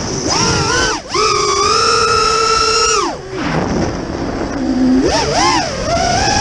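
Racing quadcopter's four Emax RS2205 2600kV brushless motors whining on 5-inch props. The pitch holds high, dips for a moment as the throttle is chopped about a second in, drops low around three seconds in, then climbs back in quick wavering throttle punches.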